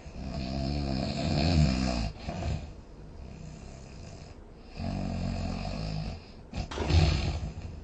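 A sleeper snoring: two long snores a few seconds apart, then a shorter, sudden and louder one near the end.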